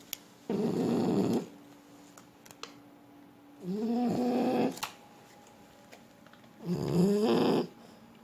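French bulldog snoring in its sleep: three snores about three seconds apart, each lasting about a second. The second and third carry a pitched tone that rises and falls.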